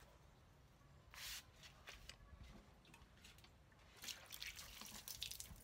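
Faint water sounds: a single short hiss of mist from a hand-held spray bottle about a second in, then water poured from a watering can trickling and dripping onto the plant's leaves and soil near the end.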